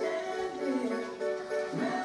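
Music playing on a radio, with a melodic line of held and sliding notes.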